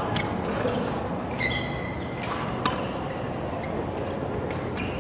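Badminton rackets hitting a real-cork Aeroplane feather shuttlecock: a few sharp hits in the middle, with a short high squeak of a shoe on the court about a second and a half in, all echoing in the hall.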